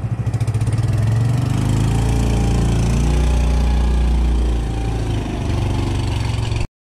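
Small fishing boat's engine running close by, pulsing at first, then revving up to a steady, louder run as the boat pulls away. It dips briefly and then cuts off suddenly near the end.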